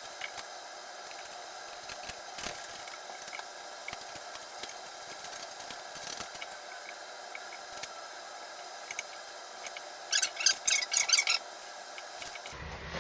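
Scattered light clicks and knocks of hand work on toilet-mounting hardware, with a burst of rapid metallic clicking lasting about a second and a half near the end.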